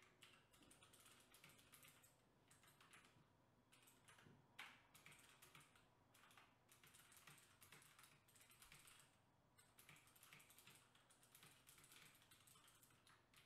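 Faint typing on a computer keyboard: an irregular patter of key clicks, with one slightly louder click about four and a half seconds in.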